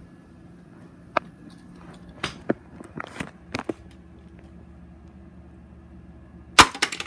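Hard toys knocking and clicking as they are moved in a toy bin: scattered light knocks through the first half, then a quick run of several louder knocks near the end, over a steady low hum.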